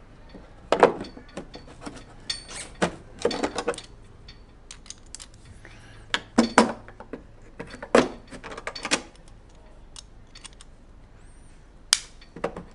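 Cleco pliers setting spring clecos to hold a vent grille in place on a side-pod panel: irregular metallic clicks and clinks, a few at a time, with short pauses between.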